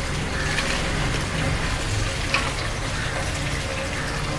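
Large pot of spiced water for biryani rice heating on the fire, a steady bubbling hiss with a low hum under it, and a brief click about two seconds in.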